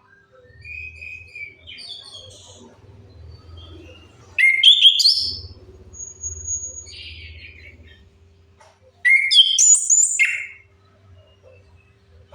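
Chestnut-capped thrush song: soft, scattered chirps and whistles, then two loud, quick phrases of varied notes about four seconds apart. A faint steady hum runs underneath.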